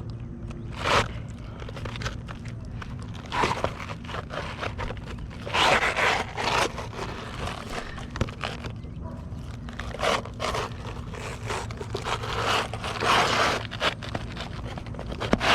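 An asphalt shingle being pushed and worked under the overlapping roof shingles, with irregular scrapes and rasps of grit on grit, several short bursts spaced a few seconds apart.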